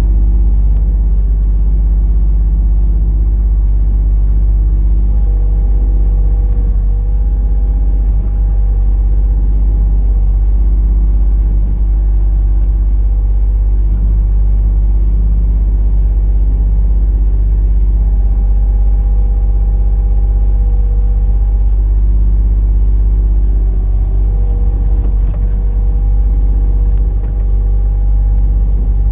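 Mini excavator's engine running steadily under a loud low rumble, with a higher whine that comes in and drops out several times.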